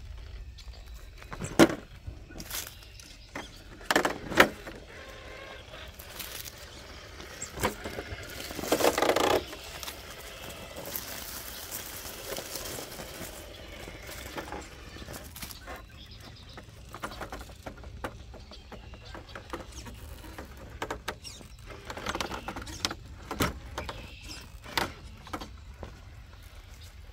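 Traxxas TRX4 K10 RC crawler truck climbing over rocks: irregular knocks, clunks and clicks of its tyres and chassis on stone and small stones clattering, with a few sharper knocks in the first few seconds.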